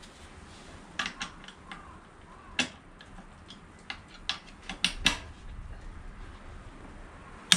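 Scattered sharp clicks and light metallic knocks of hand tools and parts being handled while a motorcycle's rear brake caliper is taken off, with a louder knock near the end.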